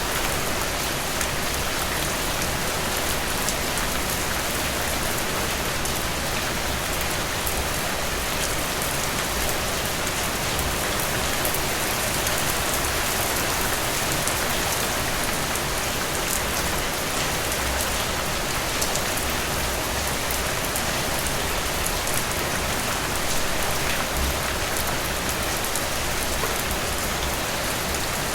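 Heavy rain falling steadily, a dense even hiss with countless small drop ticks.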